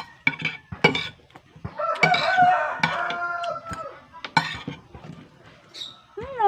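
A rooster crows once, a single drawn-out call about two seconds in, lasting roughly a second and a half. Around it, a metal spoon clinks and scrapes on an enamel plate.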